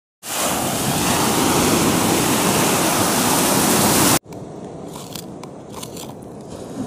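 Sea surf, waves breaking and foaming, loud and steady for about four seconds, then cut off abruptly. Then a knife slicing through a large fish's flesh on a wooden board, much quieter, with faint scrapes and light ticks.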